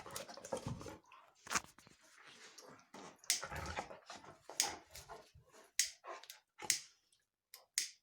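A dog sneezing again and again: about six short, sharp sneezes roughly a second apart, with softer snuffly sounds between the first few.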